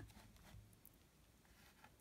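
Near silence, with a few faint ticks and rustles of a ruler and paper being moved on a paper cutter, one slightly sharper tick at the very start.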